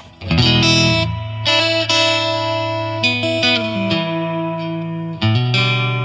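Electric guitar strumming chords through a Runoffgroove Tonemender EQ boost pedal, switched on. Each chord rings out before the next is struck, about every second.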